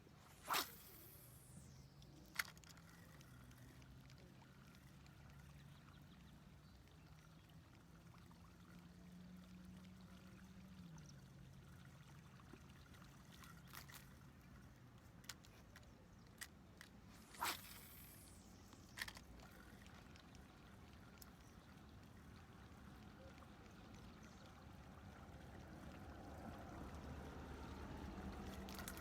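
Near silence by a lake: faint water sounds under a low hum that shifts in pitch. Two sharp swishing sounds falling in pitch come about half a second in and about 17 seconds in, each followed by a smaller click about two seconds later.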